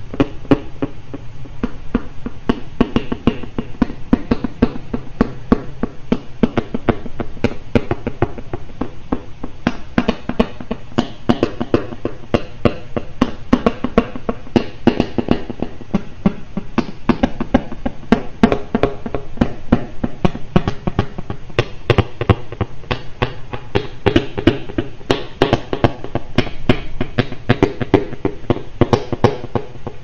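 Sound-art music made of dense, rapid clicks and knocks over faint sustained tones, with no steady beat.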